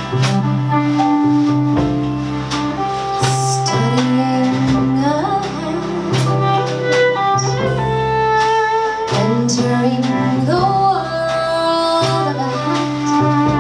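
Live jazz band playing a slow ballad: a violin bowing a sliding melodic line over piano, double bass and drums.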